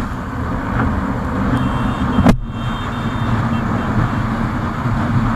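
Riding noise on a Hero Super Splendor motorcycle at speed: steady wind rushing over the microphone with engine and road rumble. A single sharp click a little past two seconds in.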